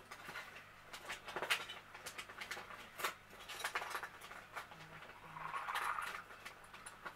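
Rummaging in search of a missing tape measure: an irregular scatter of small clicks, taps and rustles as objects are moved about.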